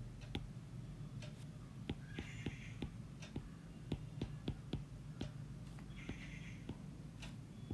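Pen writing on paper: scattered light clicks and taps with a few short scratchy strokes, over a steady low hum.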